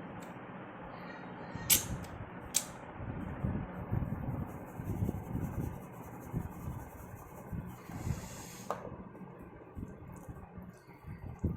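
Close-miked eating sounds: a person chewing and working soft, wet rice and mash, with irregular soft mouth noises and two sharp clicks about two seconds in.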